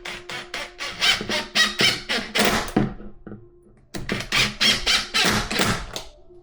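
Screws being driven into a wooden drawer front, heard as two runs of quick rasping, squeaky strokes that grow louder as each screw tightens. There is a brief pause between them.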